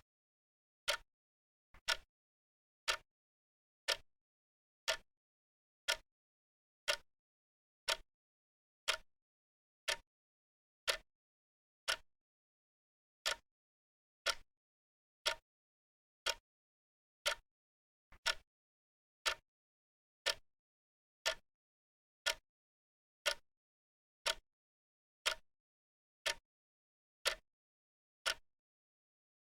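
Clock ticking, one sharp tick about every second with dead silence between ticks; now and then a tick has a faint click just before it.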